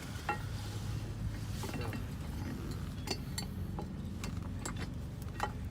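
Irregular metallic clicks and clinks of tools and parts being handled while working on a scooter's rear swing arm and wheel, over a steady low hum.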